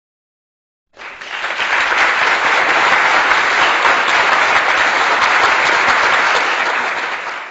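Crowd applause, many hands clapping, starting about a second in after dead silence, rising quickly, then holding steady before fading out at the end.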